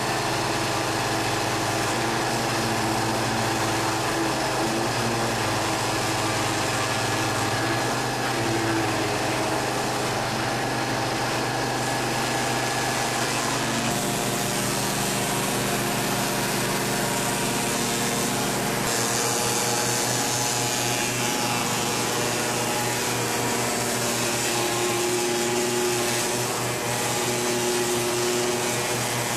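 High-pressure drain jetter running steadily, its pump motor humming while a Mustang screwdriver nozzle blasts water through a pipe. The machine's tone shifts twice partway through.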